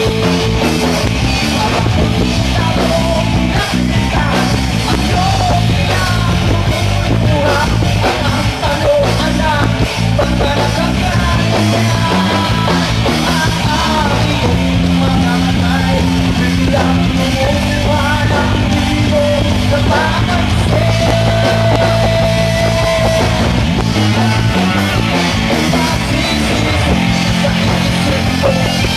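Rock band playing live and loud: electric guitars and drums with a male vocalist singing over them, holding one long note about two-thirds of the way through.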